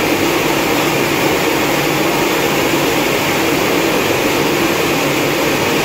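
Loud, steady machinery noise: a constant hum and rush that does not change.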